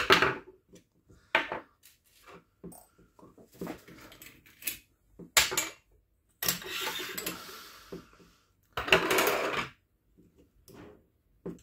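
Small-parts handling noise from unscrewing the motor plate of an airsoft electric gun's plastic pistol grip: a screwdriver, small screws and plastic parts clicking and clinking against each other and the metal tin, with two longer scraping rattles in the second half.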